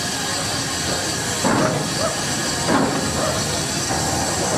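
Small steam locomotive hauling a train at low speed: a steady hiss of steam with a few louder beats as it works along.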